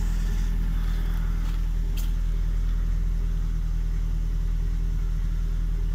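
Car engine idling steadily, a low even hum, with two light clicks about two seconds in.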